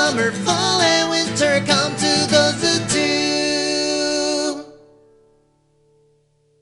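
Closing bars of a children's sing-along song, stopping about four and a half seconds in with a short fade into near silence.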